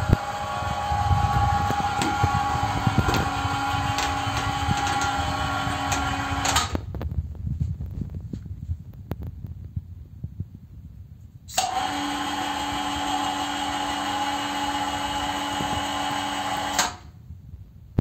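Electric hoist motor of a homemade robot-vacuum elevator whining steadily as it lifts the platform, cutting off after about six and a half seconds. After a pause of about five seconds a similar steady motor whine runs again for about five seconds and stops suddenly.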